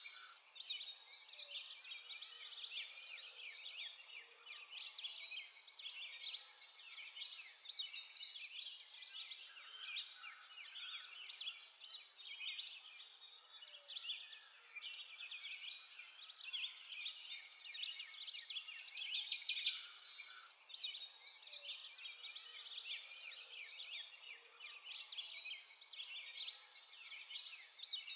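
Birdsong ambience: many birds chirping and twittering at once in a dense high chorus, swelling and fading every couple of seconds.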